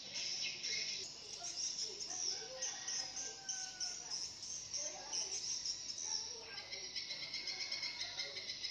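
Insects trilling in a steady, high, rapidly pulsing chorus, with scattered bird chirps.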